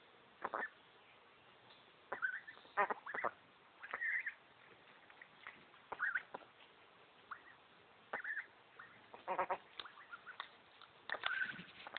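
Young Indian Runner ducks, about eight weeks old, giving short quacks and calls one after another with gaps between them, more of them together near the end.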